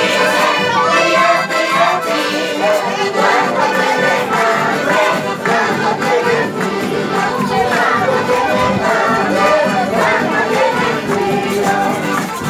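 Live Andean carnival band music: accordions, acoustic guitars and an end-blown flute playing a dance tune together without a break.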